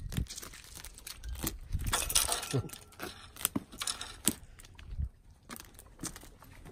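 Irregular clicks, taps and rustling of close handling noise, busiest about two seconds in, with a sharp tap about four seconds in.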